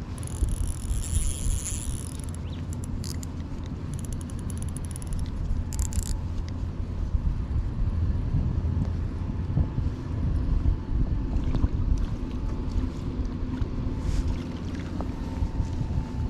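Wind buffeting the microphone outdoors, a steady uneven low rumble, with a few brief high-pitched clicking, rattling sounds in the first six seconds.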